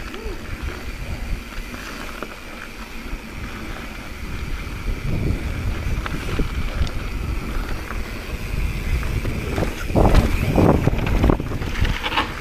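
Wind buffeting the helmet-mounted microphone over the rolling and rattling of a full-suspension mountain bike riding over dirt and bare granite rock. A run of heavier knocks and rattles comes about ten seconds in.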